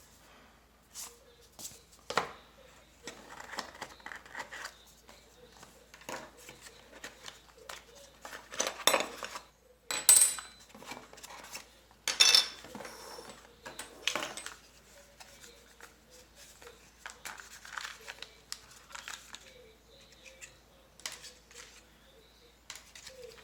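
Unpacking a boxed video doorbell kit: cardboard and plastic packaging rustling and sliding, with small hard parts clicking and clinking as they are handled and set down. The loudest clatters come about ten and twelve seconds in.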